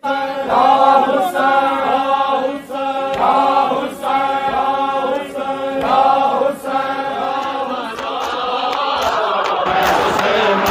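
Voices chanting a mournful lament together in short repeated phrases, about one every second and a half. Near the end the chanting turns denser and noisier, like a large crowd chanting.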